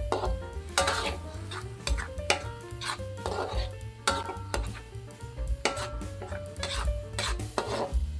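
Metal spatula and spoon scraping and clinking against a metal wok as chilli sambal is stirred while it fries in oil, in irregular strokes about every half second to a second. Background music with a bass line plays underneath.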